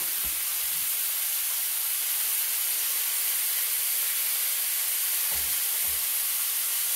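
Chicken tender pieces sizzling steadily in a hot skillet as they are turned, with a few soft knocks of the utensil against the pan.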